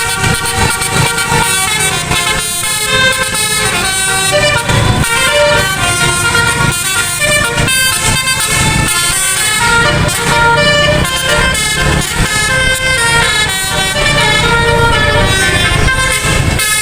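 Bus telolet horn, a multi-trumpet air horn, playing a tune of stepping notes continuously, over the low noise of the bus engine.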